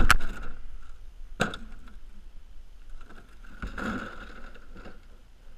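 A tool box being hauled up by rope onto an asphalt-shingle roof: three sharp knocks as it bumps the roof edge and shingles, with scraping and rustling of the rope and gloves in between.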